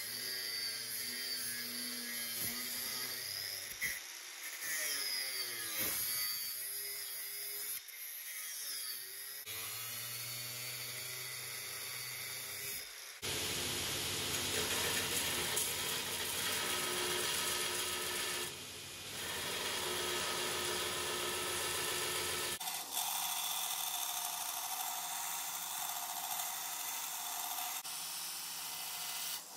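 An angle grinder with a thin disc grinds into a steel knife blade, its whine dipping and rising with the load. About 13 seconds in, this gives way to the harsh, even sound of steel pressed against a belt grinder's belt. Near the end the belt grinder runs on steadily.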